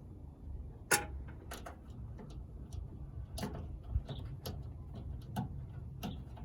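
Irregular sharp metal clicks and taps of pliers working the nuts on a Ford F-150's starter relay, about six in a few seconds, over a low steady background rumble.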